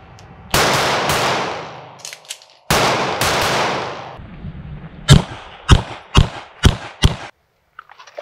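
Staccato P 9mm pistol shots: two single shots about two seconds apart, each with a long echoing decay, then a quicker string of five shots at about two a second.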